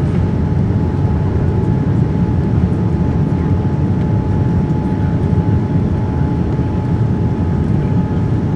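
Cabin noise inside a Boeing 787-9 with its flaps down on approach: the steady, low roar of the Rolls-Royce Trent 1000 engines and the air rushing past, with a thin steady whine over it.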